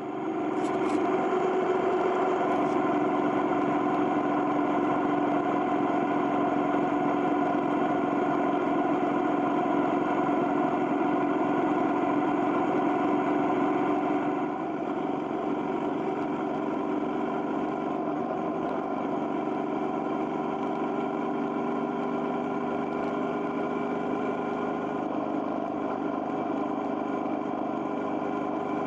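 Motorcycle engine running steadily at a constant cruising speed. About halfway through it drops a little in level and its tone shifts slightly.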